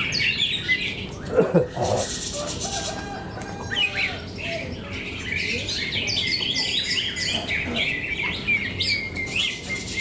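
Many caged cucak ijo (green leafbirds) singing against each other in competition: a dense, overlapping chorus of fast chirps and whistled phrases. About one and a half seconds in comes a short, louder, lower-pitched cry that falls in pitch.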